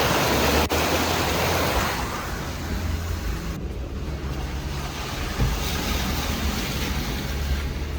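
Jeep driving through a water crossing: a loud rush of splashing water over the low, steady rumble of the engine, easing off after about two seconds to quieter engine and wheel noise.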